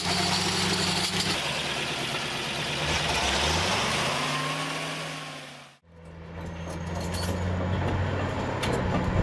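GAZ-66 truck's V8 petrol engine running hard under load, its pitch rising as the accelerator is pressed, then fading out a little over halfway through. Another heavy engine then fades in and runs steadily.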